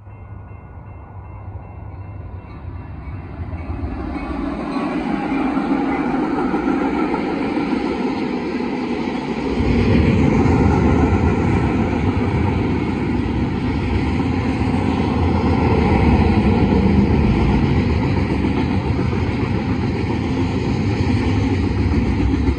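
Union Pacific freight train passing close by: the locomotives grow louder over the first few seconds, then the steady rolling noise of freight cars on the rails goes on, with a deeper rumble joining about ten seconds in.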